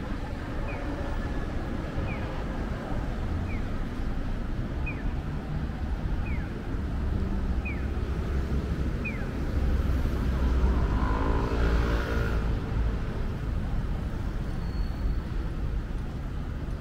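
City street traffic with a steady rumble of cars. A pedestrian crossing signal repeats a short falling electronic chirp about every second and a half for the first nine seconds. A vehicle engine passes close about ten to twelve seconds in.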